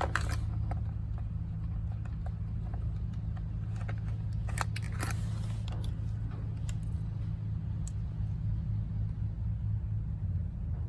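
A steady low hum with a few light clicks and taps as meter probes are handled and touched to the battery terminals.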